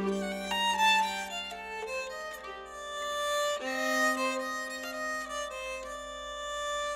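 Nyckelharpa, the Swedish keyed fiddle, played with a bow: a slow melody of held notes, with several notes sounding together and a low note sustained through the first couple of seconds.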